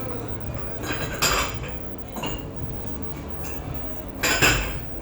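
Dishes and cutlery clattering, with two louder clanks about a second in and near the end, over a steady low hum.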